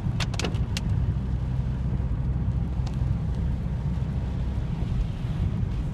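Car cabin noise while driving: a steady low rumble of road and engine, with a few sharp clicks in the first second and two fainter ones about three seconds in.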